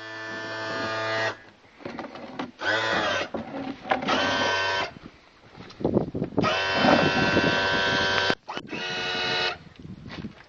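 Power trim and tilt unit of a Mercury 225 OptiMax outboard, its electric-hydraulic pump whining as the motor is tilted down. It runs in about five bursts of a second or two each, stopping and starting again.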